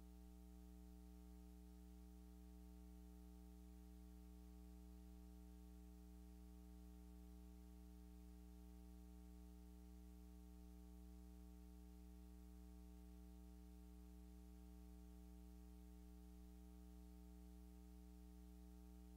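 Near silence with a faint, steady electrical hum of several constant tones, unchanging throughout.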